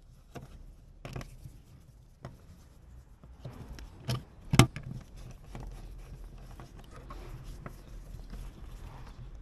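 Plastic clicks and rubbing as a 3D-printed TPU drip spout is worked off a Truma heater's wall flue and a new one pushed on, with the loudest snaps about four and a half seconds in.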